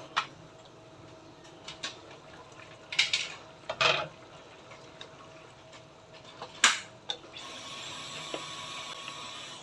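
A glass lid and a wooden spatula clink and clatter against a nonstick wok, a few sharp knocks. From about three-quarters of the way in comes a steady hiss of the adobo sauce simmering and bubbling as it is stirred.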